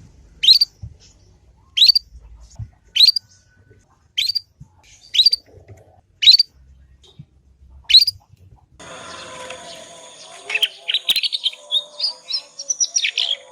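Young canary calling: a single rising chirp about every second and a quarter, seven times. About nine seconds in, a steady hum comes in underneath and the bird breaks into a fast twittering warble, the juvenile's early practice song.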